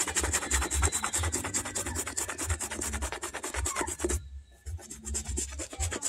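Toothbrush bristles scrubbing a suede boot upper in rapid back-and-forth strokes, with a brief pause a little after four seconds before the scrubbing starts again.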